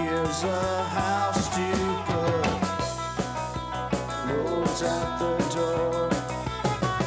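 Rock band playing: electric guitar over a drum kit, with sliding melodic lines.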